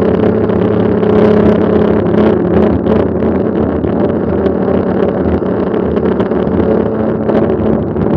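Mountain bike on the move: a steady rush of wind and tyre noise, with a low, even hum running through it.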